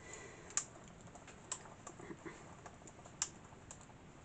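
Hand-cranked We Are Memory Keepers Mini Evolution die-cutting and embossing machine being turned, feeding its plate sandwich back through the rollers. It gives faint, irregular light clicks, with a few sharper ones spread through the pass.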